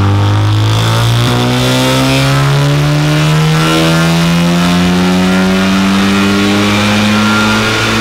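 VW Golf R's turbocharged 2.0-litre EA888 four-cylinder, fitted with a Littco L500 hybrid turbo, pulling hard under full load on a rolling-road dyno, its pitch rising slowly and steadily as it climbs through the revs.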